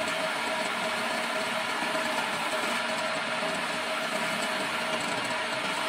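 Homemade wood lathe running steadily, its electric motor giving a steady hum, while a flat chisel scrapes and cuts the spinning wooden stair spindle.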